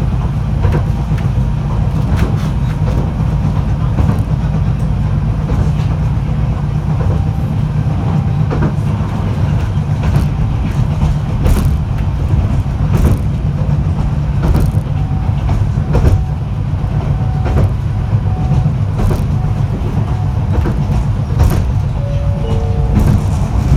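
Fukui Railway F1000 low-floor tram running at speed, heard from inside the car: a steady low rumble with irregular clacks from the wheels on the track.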